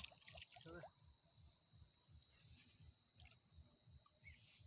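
Faint, steady chirring of insects, with two high tones held without a break.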